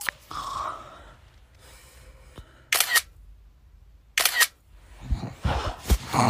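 Two camera-shutter clicks about a second and a half apart, the sound of a phone taking photos. Muffled handling noise follows near the end.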